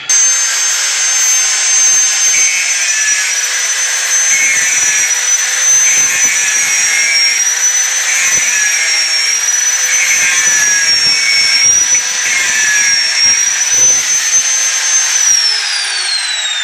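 Hand-held angle grinder running steadily as it grinds down weld metal built up on the worn teeth of an electric power-steering rack, with a rasp that comes and goes as the disc bites. Near the end it is switched off and its whine falls away as the disc spins down.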